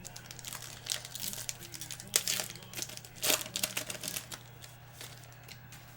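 Baseball trading cards being flipped through and handled: a run of quick papery snaps and rustles for about four seconds, then quieter, over a steady low hum.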